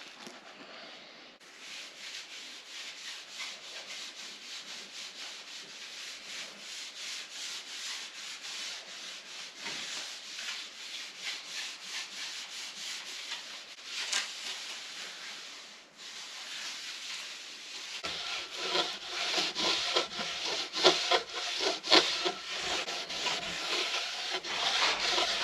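Repeated back-and-forth rubbing strokes on wooden cladding boards, growing louder and heavier about three quarters of the way through.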